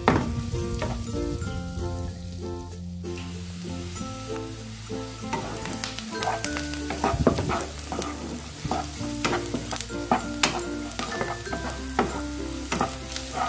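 Shallots and garlic sizzling in melted butter in a pan. A spatula stirs them, scraping and clicking against the pan many times, and the sizzle grows fuller about three seconds in. Background music plays throughout.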